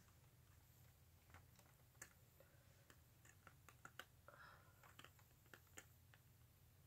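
Near silence: faint scattered clicks and light taps from handling a wet painted canvas, tilted by its edges over a foil pan, over a low steady hum.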